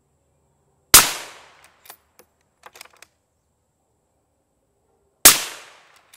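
Two suppressed .308 Winchester rifle shots about four seconds apart, fired through a 3D-printed titanium PWS BDE 7.62 suppressor in its short configuration with 147-grain loads. Each is a sharp crack with a short tail. Faint clicks follow each shot as the bolt is worked.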